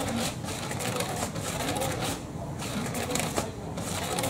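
Battery-powered cat toy running: a small motor whirring as its wand sweeps around under a fabric cover, the cloth rustling in irregular swishes a few times a second.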